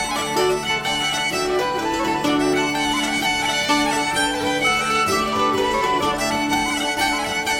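Instrumental background music with a melody of shifting sustained notes over a steady stream of short notes.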